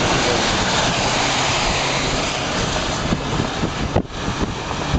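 Steady rushing wind and road noise heard from inside a moving car driving through strong storm winds, becoming more uneven with a brief knock about four seconds in.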